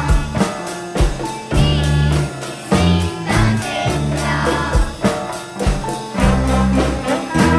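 Children's ensemble playing a song on recorders, guitars, violin and cello over a bass line and a steady drum beat, with voices singing the melody.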